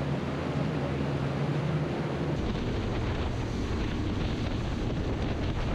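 Fishing boat running on the water: a steady engine drone with wind buffeting the microphone.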